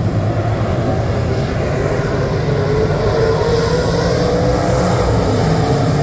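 Engines of several dirt-track race cars running as they circle the oval, a steady loud drone with one engine's pitch rising a little about three seconds in.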